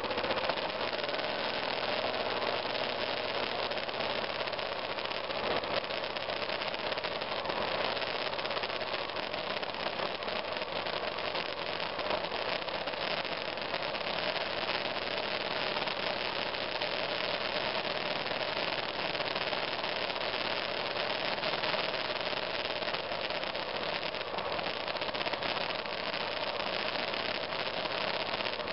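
BMW F 650 GS Dakar's single-cylinder engine running steadily while the motorcycle rides slowly along an off-road trail, under a steady rush of noise.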